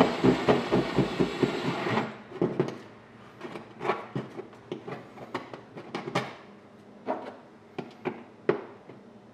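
Cordless drill with a step bit grinding through a plastic kayak hull, cutting a round hole, which stops abruptly about two seconds in. Then scattered light clicks and knocks as a plastic USB port is handled and pushed into the hole.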